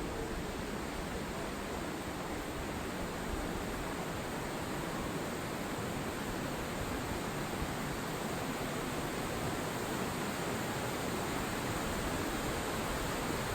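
Waterfall: a steady, even rush of falling water, growing slightly louder toward the end.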